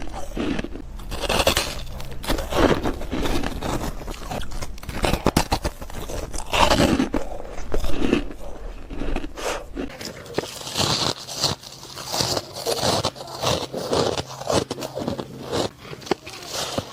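Close-miked biting and chewing of ice: dense, irregular crunching and crackling, with louder crunches about halfway through.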